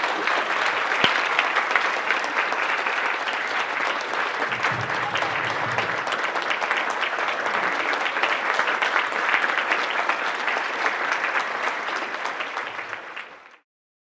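A large audience applauding, many hands clapping at once in a dense, steady wash. It dies down and cuts off shortly before the end.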